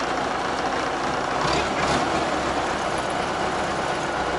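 Tractor diesel engine running steadily, swelling briefly about a second and a half in.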